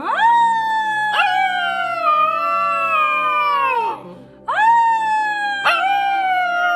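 Husky-type puppy howling: two long, high howls, each rising at the start and sliding down in pitch at the end, the second beginning about four and a half seconds in.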